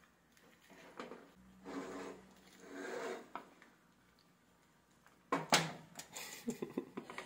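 Two wooden spatulas tossing noodles in a frying pan: soft scraping and rustling, then a sharp knock of wood on the pan a little past five seconds in, followed by a run of quick clicks.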